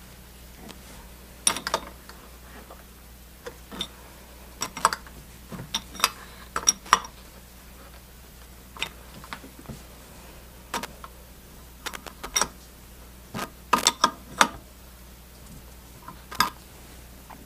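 Open-end wrench clinking against the piston retaining nuts and forged aluminium body of a four-valve refrigerant gauge manifold as the nuts are snugged down: irregular metallic clicks, some with a short ring, the loudest about a second and a half in, around seven seconds and near fourteen seconds.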